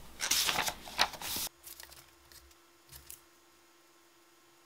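Pages of a paperback book rustling as they are handled and turned, a crackly papery sound that stops abruptly about a second and a half in. A faint steady hum follows, with one soft tap.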